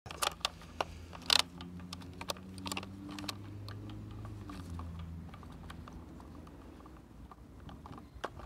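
Irregular small plastic clicks and taps from hands working a fuel pump module's plastic housing while a rubber ring is pulled onto it, the sharpest click about a second and a half in. A faint low hum runs underneath.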